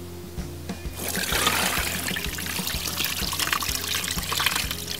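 Brine being poured from a glass bowl into a plastic container, splashing over a raw brisket; the pour starts about a second in and runs steadily on. Quiet background music plays underneath.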